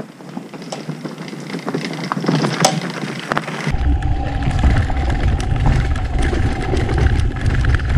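Zero FXE electric supermoto riding a rocky dirt trail: tyres crunching over loose gravel and stones as it comes closer, growing louder. A little past halfway the sound shifts to on the bike: heavy wind rumble on the microphone, stones rattling under the tyres, and a steady thin whine from the electric motor.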